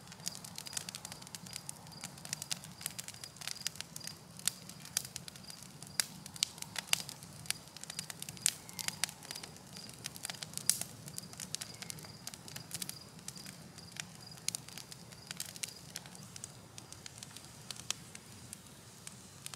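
Newly lit campfire of pine twigs and larger sticks crackling, with irregular sharp pops scattered throughout over a faint low rumble.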